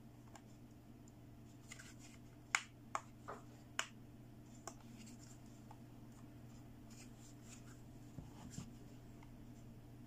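Sharp clicks and taps of hard plastic toy parts being handled: about five crisp clicks between two and five seconds in, then a few fainter taps. A faint steady low hum sits under them.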